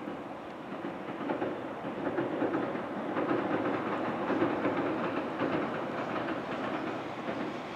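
Tobu 634-type SkyTree Train, an electric multiple unit, running past with its wheels clattering over the rail joints in a quick rhythm. The sound swells about a second in and eases near the end.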